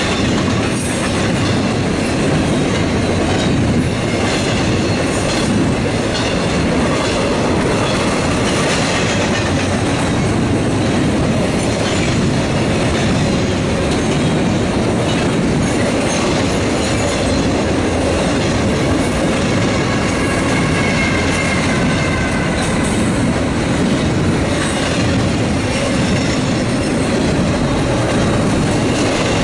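Intermodal freight train of double-stack container cars rolling past a grade crossing: a steady loud rumble and clatter of steel wheels on the rails, with faint high wheel squeal now and then.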